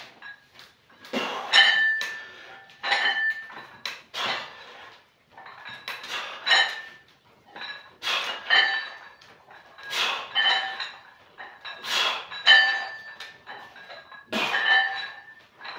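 Iron weight plates clinking and rattling on a loaded barbell during repeated lying triceps extensions, a short metallic clank with a brief ring about every two seconds as the bar is lowered behind the head and pressed back up.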